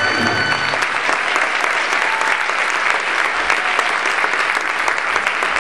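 Audience applauding steadily, a dense mass of hand claps. The held final note of the music stops within the first second.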